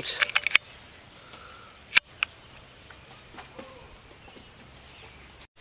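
Steady chorus of insects, a constant high-pitched buzz, with a few sharp clicks in the first half second and another about two seconds in.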